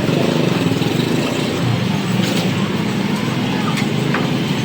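Pressure washer's motor and pump running steadily, with a few faint clicks near the middle and end.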